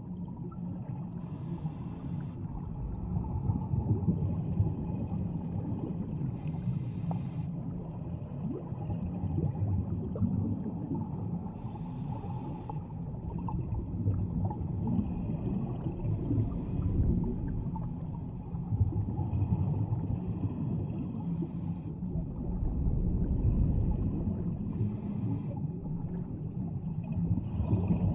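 Scuba diver breathing through a regulator underwater: a short hiss of inhaled air about every five seconds, between stretches of low, rumbling exhaled bubbles.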